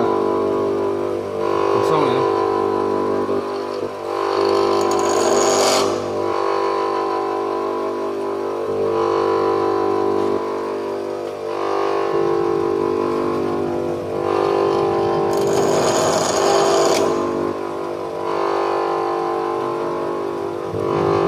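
Grinder motor running steadily while a high-speed-steel lathe tool bit is pressed against the grinding wheel in repeated passes; the grinding hiss swells several times, loudest about five seconds in and again past the middle.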